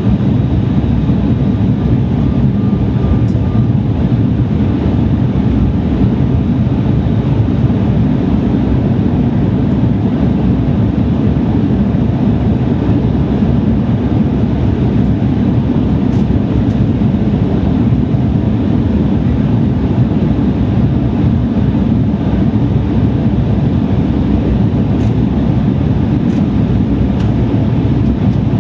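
Steady, even cabin roar of an Embraer 170 airliner in its climb, mostly low in pitch: the engines at climb power and airflow over the fuselage, heard from inside the passenger cabin.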